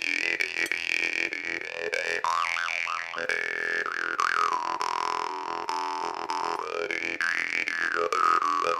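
Plekhanov drymba (jaw harp) played with rapid plucks over a steady drone, its bright overtone melody sliding up and down.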